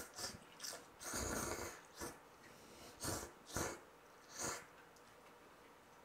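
A person slurping noodles: a run of short, airy slurps, the longest about a second in, with quieter gaps between.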